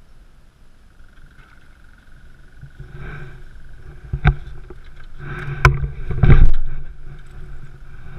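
A spinning reel being wound in while a small fish is played from an aluminium boat, with a steady thin whirr. Two sharp knocks of gear on the hull come around the middle, followed by a louder, noisier stretch a little past six seconds.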